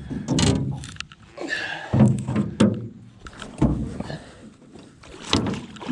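A series of thunks and knocks against a john boat's hull as a hooked pike is handled and unhooked in the boat.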